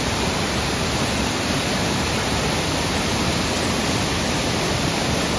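Waterfall: water pouring down over a rock face, a steady, even rush of water.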